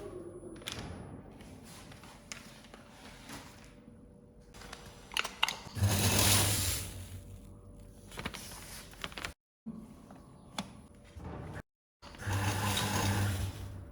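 Auger powder filler's drive motor running in two short bursts of about a second each, with a low hum and the rush of powder, about six seconds in and again near the end: each burst is one dose of washing powder dispensed into a bag. Small clicks and knocks of the machine come between the doses.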